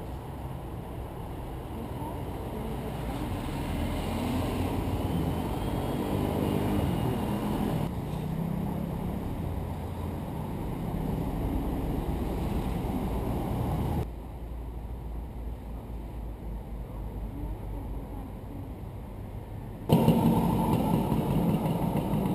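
City street traffic: low rumble of car engines and passing vehicles. The sound changes abruptly about 8, 14 and 20 seconds in, and is quietest between the second and third changes.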